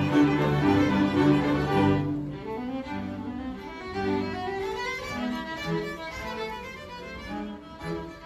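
A string orchestra playing, with a solo violin carrying a melodic line over held notes in the lower strings (cellos and double bass). The music softens about two seconds in before swelling again.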